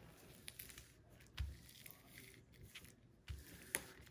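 Faint crinkles of the clear plastic film on a diamond painting canvas as hands press and smooth it, with a couple of soft thumps against the table.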